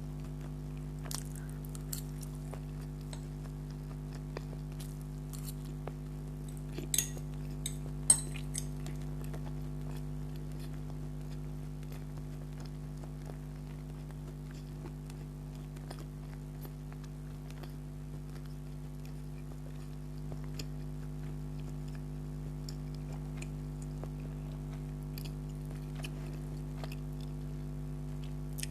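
Close-miked chewing of spicy chicken spaghetti, with scattered small clicks and two sharp louder clicks about seven and eight seconds in, over a steady low hum.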